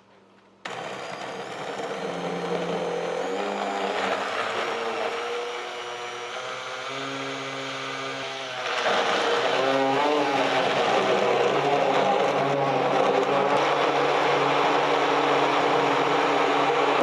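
Electric blender switched on, grinding pear, apple, garlic, ginger and soy sauce into a marinade. It starts suddenly, runs steadily, and gets louder about halfway through.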